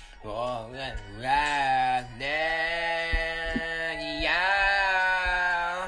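End-credits song playing from a laptop and picked up off its speakers: a singing voice over music, short phrases at first, then two long held notes from about two seconds in.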